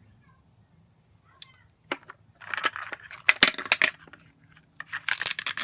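Crinkling and crackling of plastic packaging handled by hand: the small sealed bags around Zuru Mini Brands mini items. It comes in two spells of crackling with sharp clicks after about a second of quiet.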